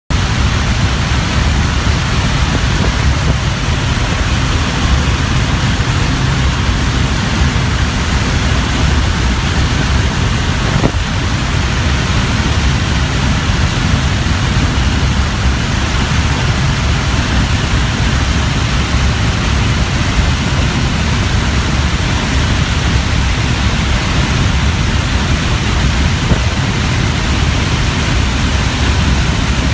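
Small propeller plane's engine running steadily at climb power through the takeoff roll and climb out, heard from inside the cabin with loud, steady wind rush through the open jump door.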